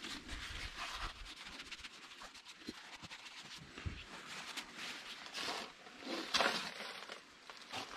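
Blue paper shop towels rustling as a small metal hydraulic pilot-filter housing cup is wiped clean and set down. In the second half come shuffling steps on gravel, loudest a little past the middle.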